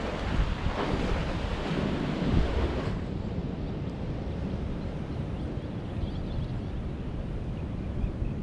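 Surf washing on a beach, mixed with wind buffeting the microphone. About three seconds in the sound changes abruptly to a duller, lower wind rumble with little hiss.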